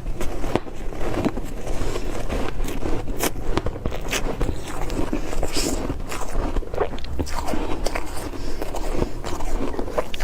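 Ice being bitten and crunched between the teeth: a dense, irregular run of sharp cracks and crunches.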